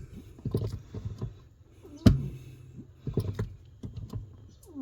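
A single sharp clunk about two seconds in, with a few lighter knocks around it, from a new Bendix brake booster as the brake pedal is pushed down. The pedal seems to catch on something inside and then go past it, after which it drops a little further; the owner does not know the cause.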